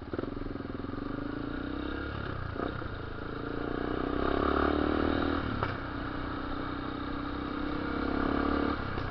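Yamaha Lander 250's single-cylinder engine through an aftermarket ProTorque exhaust, ridden through the gears. The engine pulls up and gets louder about midway, then the revs drop with a single sharp snap. It rises again and drops near the end.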